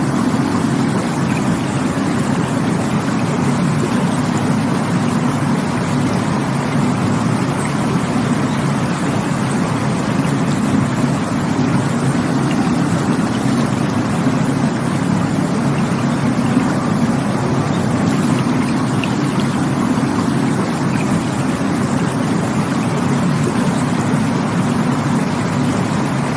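Rushing water making a steady, even rush with no breaks or changes.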